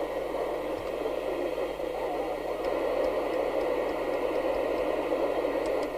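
Rotel RVC240 FM CB base station's 3-inch speaker giving a steady static hiss of receiver noise between transmissions.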